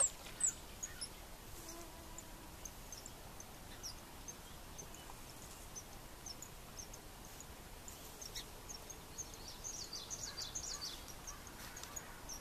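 Small birds chirping faintly over a low, steady outdoor hiss. The short high chirps come scattered throughout and are busiest near the end.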